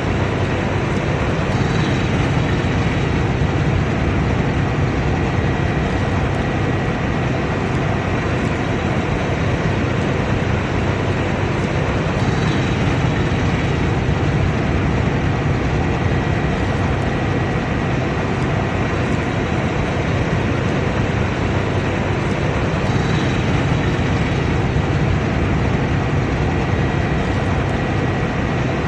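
Combine harvester running steadily in the field: a continuous, even machinery noise with no change in load.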